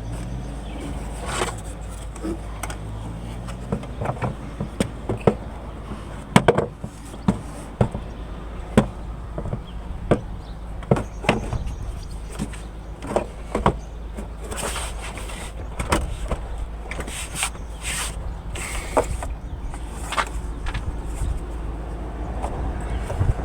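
Irregular clicks and knocks of parts and tools being handled on a car, over a steady low rumble.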